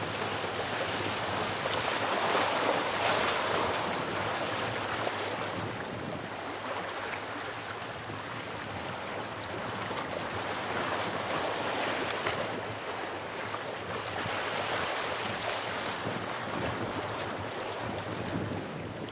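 Sea waves washing over shoreline rocks, a steady rush of surf that swells and falls back every few seconds.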